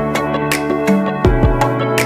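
Instrumental background music: sustained chords with a run of sharp, struck notes.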